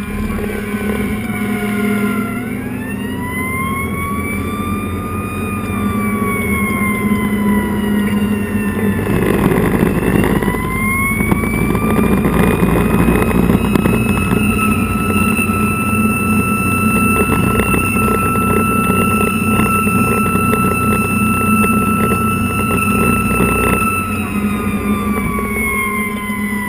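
Fire engine's siren heard from inside the cab over the steady drone of the engine: it winds up about two seconds in and slowly falls, winds up again about ten seconds in, holds a steady high pitch, then winds down near the end. A short burst of noise comes about nine seconds in.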